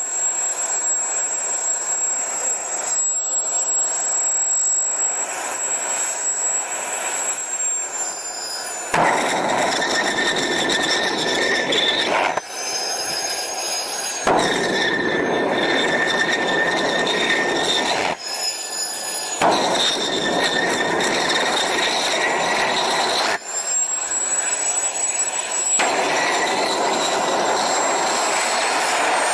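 Homemade turbojet engine on a jet go-kart running: a high, steady turbine whine at first, then a louder rushing jet noise with whine tones that shift up and down in pitch, broken by several abrupt cuts.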